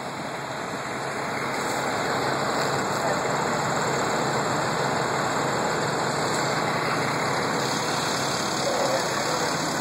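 A fire truck's diesel engine running steadily, its sound swelling over the first second or two and then holding.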